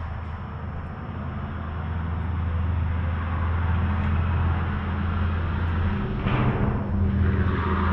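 Steady low motor hum that grows louder about two seconds in, with a rush of noise over it in the last two seconds.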